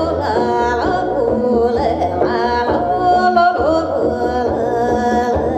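Live music: a woman sings a wordless, joik-style melody into a microphone over a plucked double bass.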